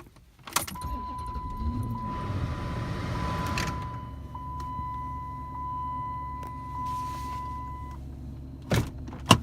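2006 Dodge Charger engine cranking and starting, then idling with a low steady hum. A steady high tone sounds for most of the time and stops near the end. Two sharp knocks come just before the end.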